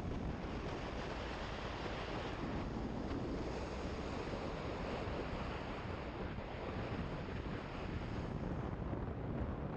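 Steady rush of wind over the microphone of a moving motorcycle, with the engine and road rumble underneath.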